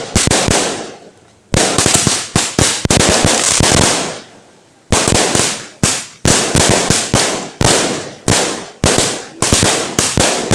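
Fireworks going off in a rapid, irregular series of sharp bangs, several a second, each fading away in an echo, with two brief lulls.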